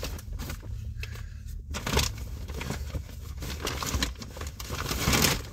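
Rustling and crinkling of a shopping bag being rummaged through, with a few light knocks, over a low steady hum.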